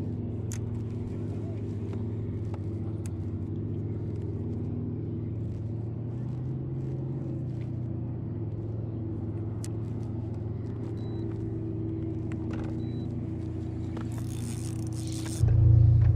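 A motor running steadily, a low hum with several held tones and no change in speed. Near the end there is a louder low rumble about a second long.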